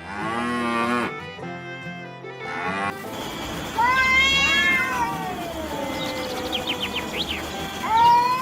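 Sheep bleating: a short bleat over string music near the start, then, once the music stops, a high wavering bleat about four seconds in, a longer, lower drawn-out call, and another loud bleat near the end.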